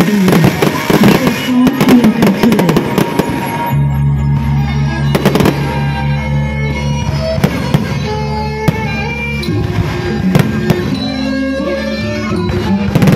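Fireworks crackling and popping over loud music. A dense crackle fills the first few seconds; after that the music, with held low notes, takes over and only scattered pops remain.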